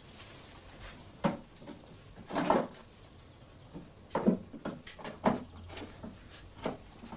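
A handful of short knocks and clunks of things being handled on wooden shop furniture, such as cupboard doors, drawers or items set down, spaced irregularly, with several close together about four to five seconds in.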